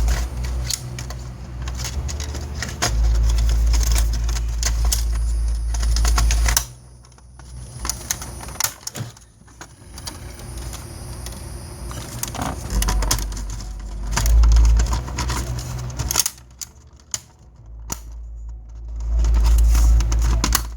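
Hands working on a VHS player on a workbench: irregular clicks, taps and rattles of small plastic and metal parts, with spells of low rumbling handling noise.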